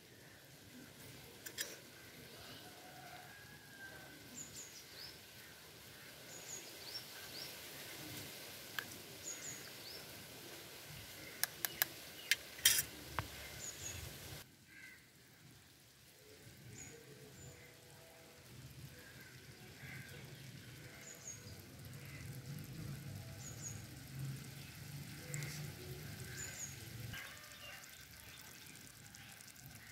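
Faint outdoor ambience with a small bird chirping now and then, and a quick run of sharp clicks about twelve seconds in. The background drops off abruptly about halfway through.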